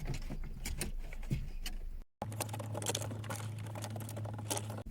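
Hands handling a USB cable and plastic dashboard trim: scattered light clicks and rustles. The sound drops out briefly about two seconds in, after which a steady low hum runs under the clicking.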